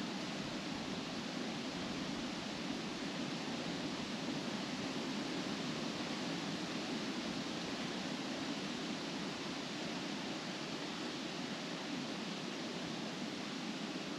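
Wind blowing steadily through trees, the leaves rustling in an even hiss with no distinct gusts.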